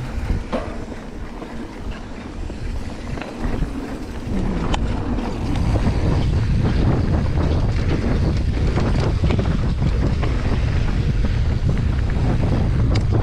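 Wind rushing over the microphone of a mountain bike descending a dirt trail, with small clicks and knocks from the bike over the rough ground. The wind noise grows louder about five seconds in as the bike picks up speed.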